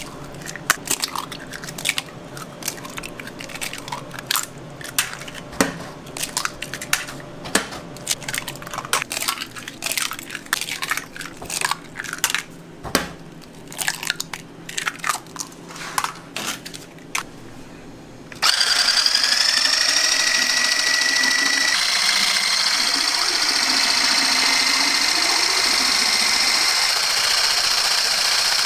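Raw eggs being cracked one after another, a long run of sharp, irregular cracks and clicks. About two-thirds of the way through, an electric whisk starts up suddenly, its whine rising briefly as it spins up, then running steadily and loudly as it beats the eggs.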